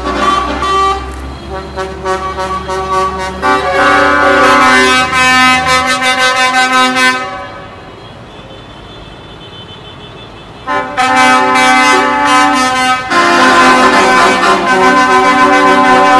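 Vehicle horns blaring in long held blasts, several horns at once, over the rumble of a diesel engine. The horns break off about seven seconds in and start up again a few seconds later.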